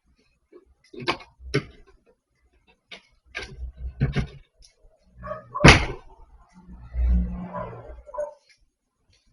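A dog barking now and then, mixed with a series of sharp knocks and thumps, the loudest a little past halfway, and a low rumble near the end.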